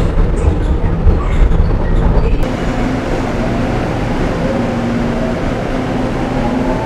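Seoul Subway Line 1 electric train: inside the car it rumbles, with regular clicks of the wheels running over the track. About two and a half seconds in, it changes to the train heard from the platform as it pulls away, its motors whining and rising in pitch as it speeds up.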